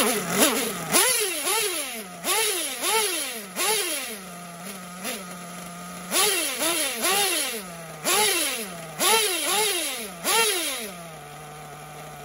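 Freshly rebuilt two-stroke nitro methanol engine of an Xray XB8 1/8-scale RC buggy running just after its first start, blipped over a dozen times in quick revs that rise and drop back to a steady idle. It idles alone for a couple of seconds in the middle and again near the end.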